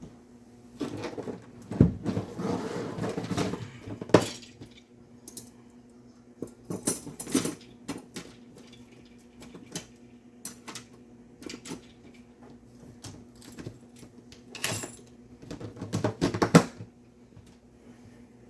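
Small hard metal items clinking and rattling as they are handled and sorted, in irregular bursts of clatter with quieter gaps between.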